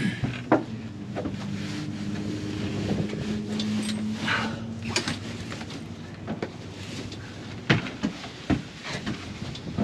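Metal tent pole and canvas being handled as the pole is forced into its sleeve: scattered knocks and clicks with a rush of fabric noise about four seconds in, over a steady low hum.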